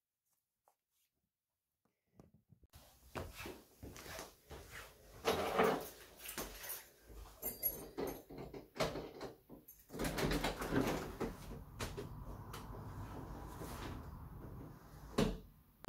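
Near silence for the first couple of seconds, then irregular knocks and clatter as someone moves about a hallway and opens the front door. Once the door is open a steady outdoor noise comes in, and a single sharp knock sounds near the end.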